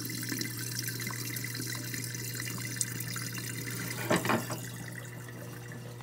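Dishwasher drain pump humming steadily as the drained water runs out through the garbage disposal and trickles down the sink drain: the dishwasher is now draining fully.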